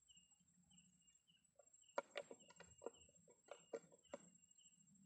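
Faint chicken clucking: a quick run of about eight short clucks over a couple of seconds in the middle. Faint short chirps recur throughout.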